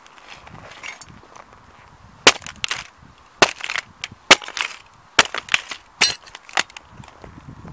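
Chunky sneaker soles stomping on a die-cast metal model Ferrari on gritty ground. After about two seconds, a quick string of about a dozen sharp cracks and crunches comes as the car's body and parts break and grind into the grit.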